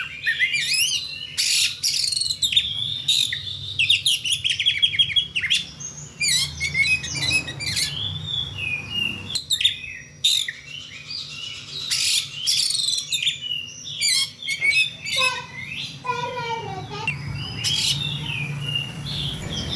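Oriental magpie-robin (kacer) in full song: a long, varied run of whistles, rapid trills and sharp chipping notes, broken by short pauses.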